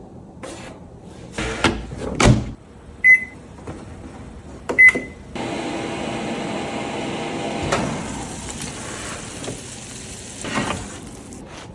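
Microwave oven being set going: a couple of knocks as the door is shut, two keypad beeps, then the oven starts and runs with a steady hum for about six seconds.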